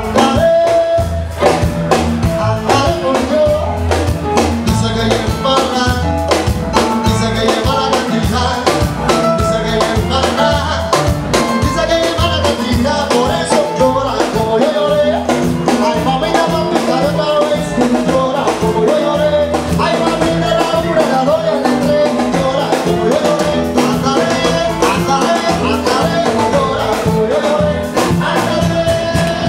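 Live Latin dance band playing an up-tempo number, with singing over dense hand and kit percussion and a steady bass line.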